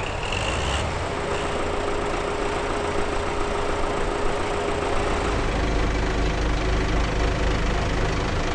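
Belarus MTZ-82 tractors' four-cylinder diesel engines idling steadily, with a deeper, heavier engine sound from about five seconds in.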